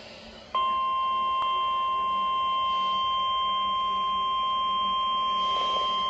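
Midland S.A.M.E. weather alert radio sounding a steady single-pitch alert tone, most likely the NOAA Weather Radio 1050 Hz warning alarm tone that comes before a warning broadcast. The tone starts suddenly about half a second in and holds at an even level, with a brief click about a second and a half in.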